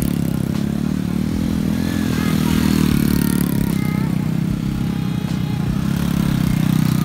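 Small motor scooter engine running steadily during stunt riding, its note holding fairly even throughout.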